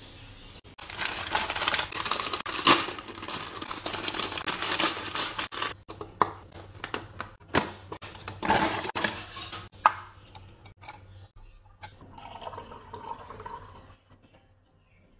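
A plastic candy packet crinkles and tears open, crackly at first and then in separate sharp crackles. Near the end comes a quieter stretch of juice being poured into a glass.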